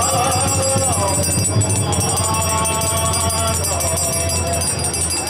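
A man's voice singing a devotional chant through a PA, with small metal hand percussion jingling steadily behind it and a steady low hum.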